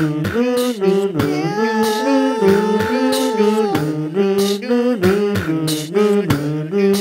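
Multitracked a cappella singing: layered vocal harmonies over a steady percussive beat, with a long held note starting about a second in and lasting a couple of seconds.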